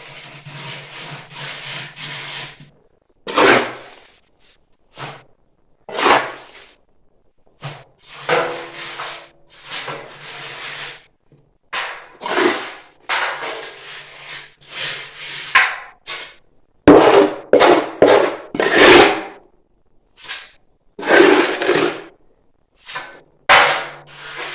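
Wet perlite mix being scooped and spread into the bottom of a stove, with irregular scraping and rubbing strokes, and a run of loud knocks about two-thirds of the way through.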